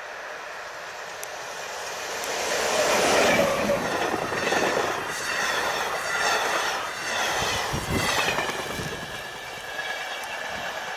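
PKP Intercity class EU07 electric locomotive and its passenger coaches passing at speed. The noise builds to its loudest about three seconds in as the locomotive goes by, then the coaches' wheels clack over the rails in repeated waves, easing off near the end.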